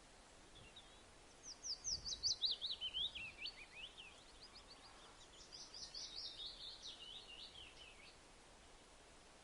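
A bird singing two quick trilled phrases of rapid sweeping notes. The first phrase, about a second and a half in, falls steadily in pitch; the second follows about a second later and stays higher and fainter.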